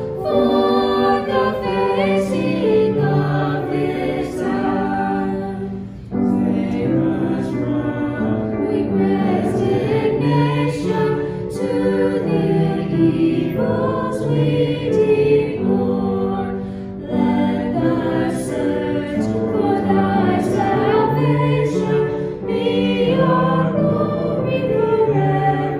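A choir singing a slow sacred piece in long held phrases, with short breaks between phrases.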